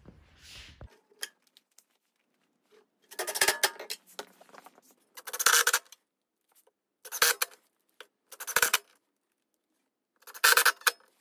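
Five short bursts of metal clinking and rattling: metal electrical boxes, cable connectors and lock nuts being handled and tapped together.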